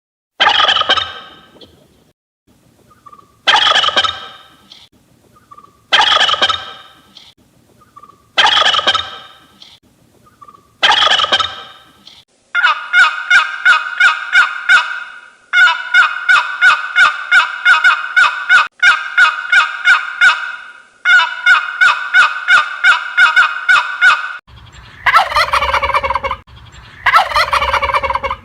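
Turkey gobbling: five separate loud gobbles about two and a half seconds apart, then a long run of rapid, evenly spaced pulses at a steady pitch, then two more calls near the end.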